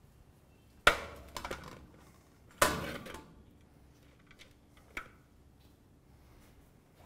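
Metal serving platters of ingredients set down on a kitchen counter: two loud clanks, about a second in and again near the three-second mark, each ringing briefly, with lighter knocks between them and one more about five seconds in.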